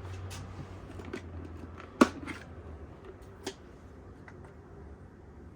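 Small plastic clicks and knocks from handling a coffee grinder's catch cup and parts, with one sharp knock about two seconds in and a lighter one about a second later.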